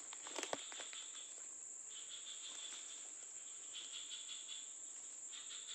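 Night insect chorus of crickets: one steady high trill, with a lower chirping that pulses on and off. A few short clicks about half a second in.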